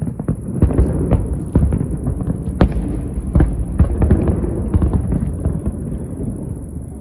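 Aerial firework shells bursting in quick, irregular succession: many sharp bangs over a rolling low rumble, thinning out near the end.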